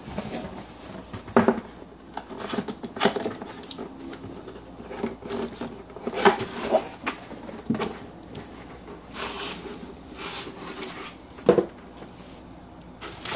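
Cardboard box being handled and opened by hand: flaps and lid scraping and rubbing, with irregular sharp knocks as the box is moved about.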